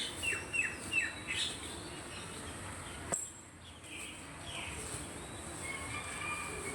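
Small birds chirping: a quick run of short, downward-sliding calls in the first second and a half, then fainter calls later. A single sharp click about three seconds in.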